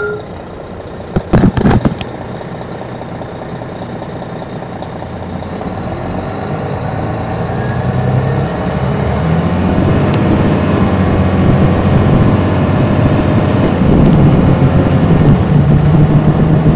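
On-board sound of a 2002 MCI D4000 coach's Detroit Diesel Series 60 diesel engine pulling away and accelerating, growing steadily louder. A few short, sharp bursts come about a second in, and a faint high whistle rises and holds from about nine seconds in.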